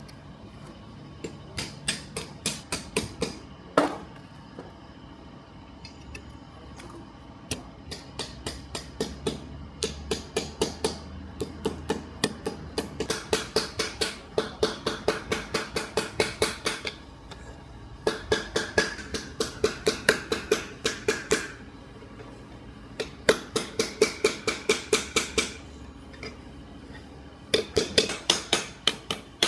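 Quick runs of light, ringing metallic strikes, about four or five a second, in bursts of one to four seconds with short pauses between them.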